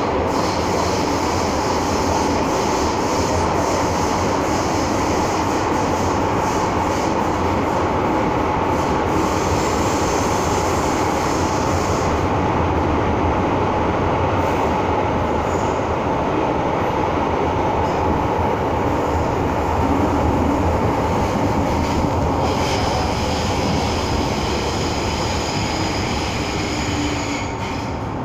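Running noise inside an MTR M-Train metro car at speed: a steady loud rumble with a constant hum. A thin, high-pitched squeal rides over it for the first dozen seconds and again near the end.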